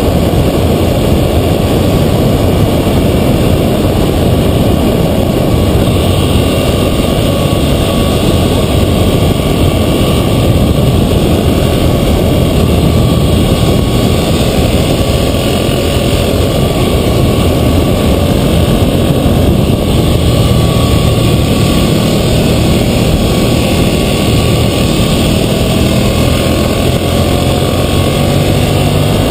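2012 Ducati Monster 1100 EVO's air-cooled L-twin engine running under way, mixed with heavy wind buffeting on the camera's microphone. The engine note rises near the end as the revs climb.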